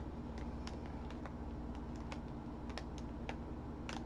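Scattered light clicks and taps, a few a second at an uneven pace, over a steady low hum.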